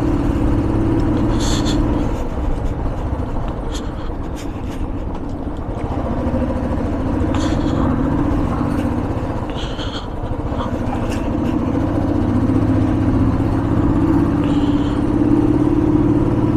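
Royal Enfield Thunderbird 350's single-cylinder engine running as the motorcycle rides along, heard from the rider's seat. The engine note eases off around ten seconds in and builds again, with a few short knocks along the way.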